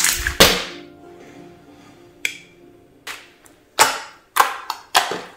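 Hands squishing and pressing a soft clear dish-soap slime on a tabletop, making a string of sharp wet smacks and pops at uneven intervals, the loudest about half a second in.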